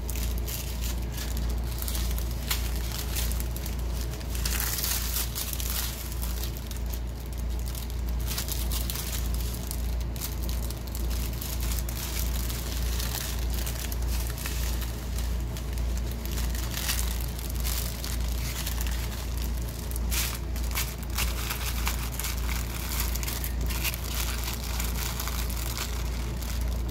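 Small clear plastic bags of diamond painting drills crinkling and rustling irregularly as they are handled, over a steady low hum.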